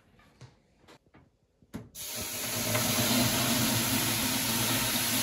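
A few faint clicks as a glass sauna door is opened by its knob. Then, about two seconds in, a steady hiss with a low hum starts abruptly and holds.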